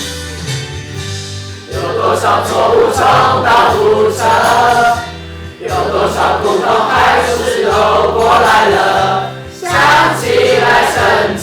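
A group of voices singing a song together over instrumental backing with a steady bass line. The voices come in about two seconds in and break off briefly twice.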